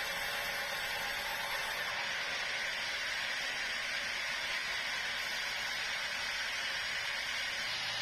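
Sawmill saw running through a large meranti log, a steady even noise without distinct tones or knocks.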